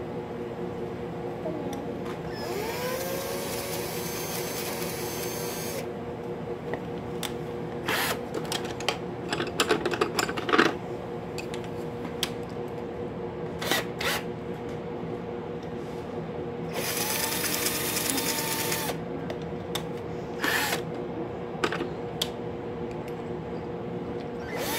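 Cordless drill motor whirring steadily. Twice, a pencil crayon spun in its chuck grinds in a pencil sharpener with a hissing scrape lasting a few seconds, and sharp clicks and knocks come in between.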